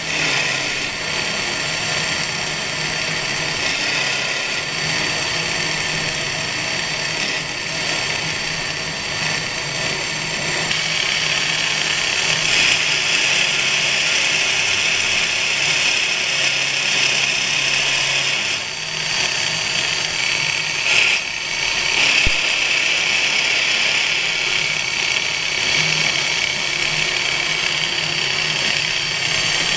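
12 mm carbide end mill in a CNC-retrofitted XQ6232A knee mill, side-milling steel at 1500 rpm with a deep 25 mm axial cut: a steady machining whine and hiss that grows louder about ten seconds in.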